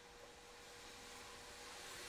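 Faint, soft scraping of a metal palette knife dragged through thick acrylic paint on stretched canvas, growing a little louder from about a second in.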